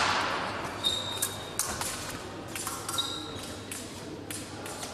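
Épée fencing bout in a large hall: quick irregular taps and stamps of the fencers' feet on the piste, mixed with clinks of the blades meeting. A short metallic ring sounds twice, about a second in and again about three seconds in.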